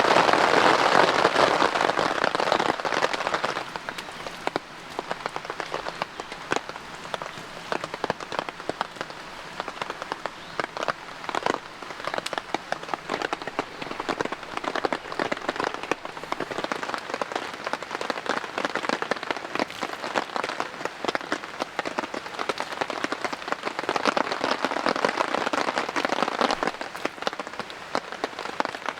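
Rain falling steadily, with many separate drops pattering on a surface close by; it is louder for the first three seconds or so.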